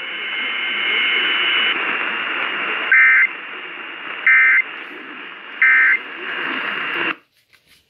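Emergency Alert System end-of-message data bursts: three short, identical electronic chirps about 1.3 seconds apart, heard through radio hiss with a faint steady whine. They mark the end of the tornado warning broadcast. The hiss cuts off suddenly near the end.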